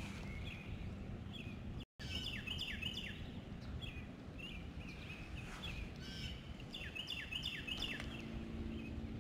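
Small birds chirping again and again, short high notes that slide down in pitch, coming in quick runs over a steady low rush of moving water.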